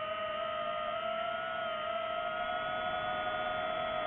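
DJI FPV drone's motors and propellers whining at a steady held pitch, the throttle kept constant in cruising flight.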